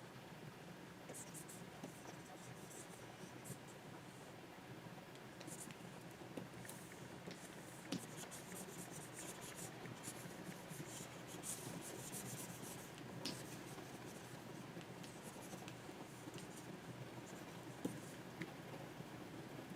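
Stylus nib scratching across a Wacom 24 Pro drawing tablet in short strokes, with an occasional sharper tap, over a faint low hum.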